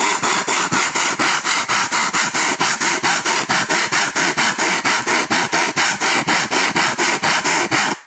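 Hand saw cutting through wood in fast, even back-and-forth strokes, about five a second, rasping steadily, then stopping suddenly near the end.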